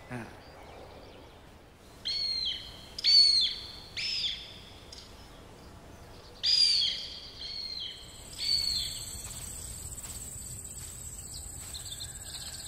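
A bird calling loudly in two series of three short calls, each call sliding down in pitch, spaced about a second apart. From about two-thirds of the way through, insects keep up a steady high-pitched buzz.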